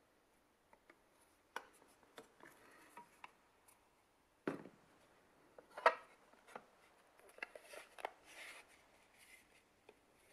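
Wood being hand-sanded with sandpaper and handled: short scratchy rubs and light clicks, with sharp wooden knocks about four and a half and six seconds in, the second the loudest, and longer rasping rubs near the end.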